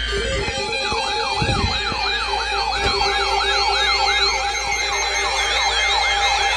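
Electronic yelp-style warning siren: a rapid rise-and-fall wail repeating about three times a second over a steady tone, starting under a second in.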